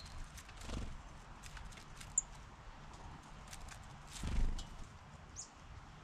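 Wild birds feeding: scattered sharp taps and clicks, two short high chirps, and two soft low thuds, about a second in and just past four seconds.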